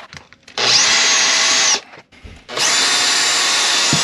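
Cordless drill driving screws through a rubber mat into plywood: two runs, the first about a second long and the second nearly two, each spinning up quickly at the start before running steadily.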